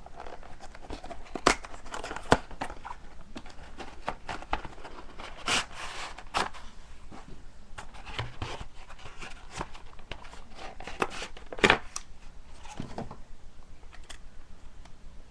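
Packaging of an Otterbox Defender phone case being opened by hand: irregular rustling and tearing with scattered sharp clicks, the loudest clicks about a second and a half, two seconds, and nearly twelve seconds in.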